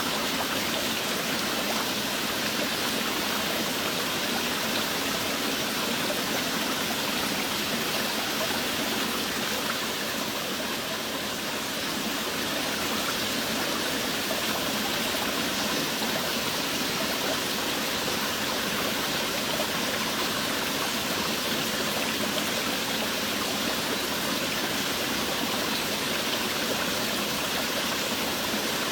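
Steady heavy rain: an even hiss of falling water with no breaks.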